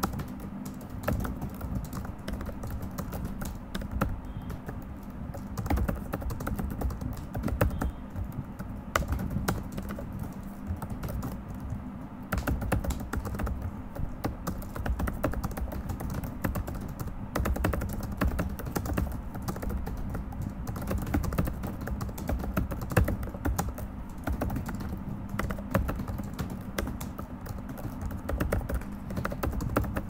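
Fast, continuous touch-typing on a laptop's low-profile chiclet keyboard: a dense, uneven run of quick key clicks with no pauses.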